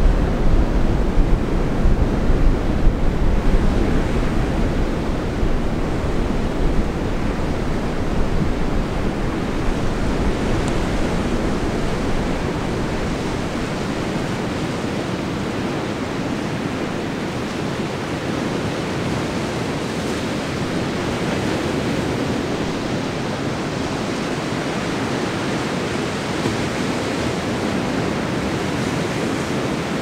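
Ocean surf breaking and washing up the beach: a steady rushing, with a deep rumble that is heavier at first and eases off after about ten seconds.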